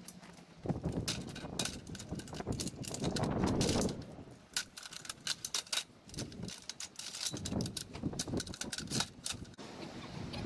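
A rapid, irregular run of clicks and clattering knocks over a rustling noise, heaviest in the first few seconds and again near the end.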